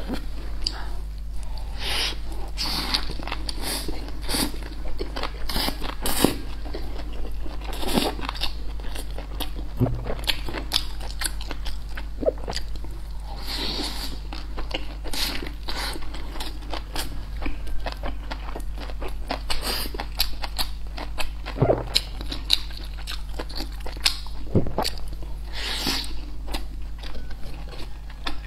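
Close-miked eating: a person biting and chewing crisp battered fried food and soft flatbread wraps, with frequent irregular crunches and crackles and wet chewing.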